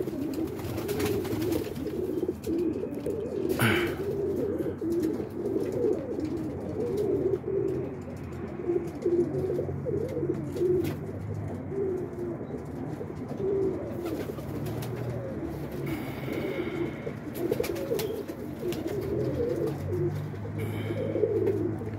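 A group of roller pigeons cooing, many birds overlapping in a continuous low warbling coo.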